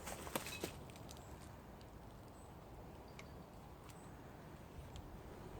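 Quiet open-air background with a few light clicks near the start, then a faint steady hiss with a few brief, faint high peeps.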